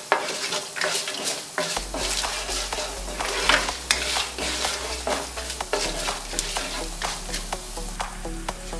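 Whole spices sizzling in hot ghee in a non-stick pan, stirred with a plastic spatula that scrapes and clicks against the pan again and again.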